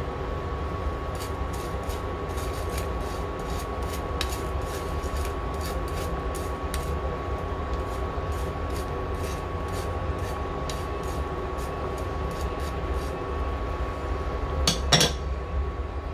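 Induction cooktop running with a steady hum and a thin high whine under a pot of soup at a simmer, with small scattered pops from the bubbling broth. A spoon scrapes against a stainless mesh strainer once, louder, near the end.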